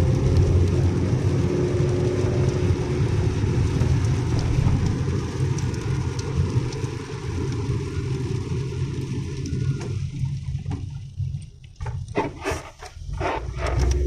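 Car cabin noise while driving on a wet road: a steady low rumble of engine and tyres with a hiss above it. About ten seconds in, the sound thins out and dips for a couple of seconds, with a few short knocks, then the rumble comes back.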